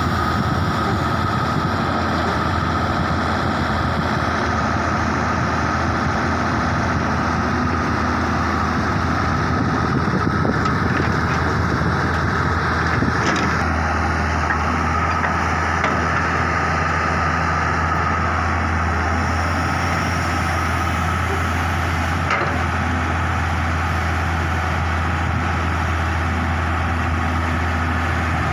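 Wheeled excavator's diesel engine running steadily under load while it digs and loads soil, with a steady high whine above the engine note and a couple of faint clanks.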